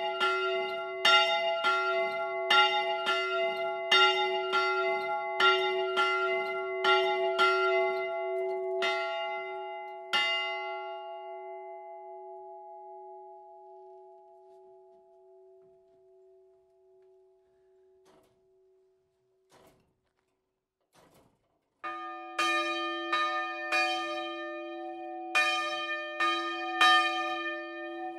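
A swinging bronze church bell, the Panna Mária bell tuned to f² (about 102 kg, cast by the Fischer brothers of Trnava in 1937), strikes about one to two times a second, then stops, its hum dying away over several seconds. After a few faint knocks, a lower bell, the sv. Mikuláš bell in es² (192 kg, cast by Ferenc Walser of Budapest in 1881), starts swinging and ringing about two-thirds of the way in.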